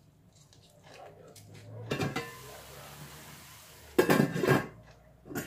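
Stainless steel lid of a Saladmaster electric skillet clattering and clinking against the pan as it is gripped and moved, a cluster of sharp metal strokes about four seconds in, with one more click near the end. Before that there is a soft steady hiss for a couple of seconds.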